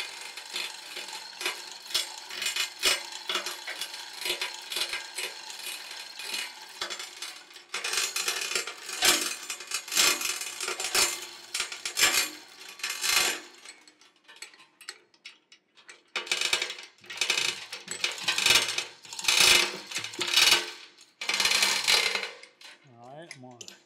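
Hand chain of a manual chain hoist on a gantry crane being pulled hand over hand, the chain rattling through the hoist as it lowers a heavy hydraulic cylinder. A steady run of rapid clicking lasts about thirteen seconds, then comes a short pause, then several short bursts of clicking.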